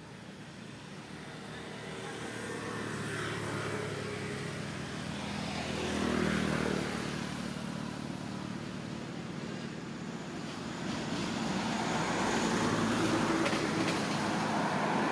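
A motor engine passing by, growing louder to a peak about six seconds in, easing off, then rising again and staying loud near the end.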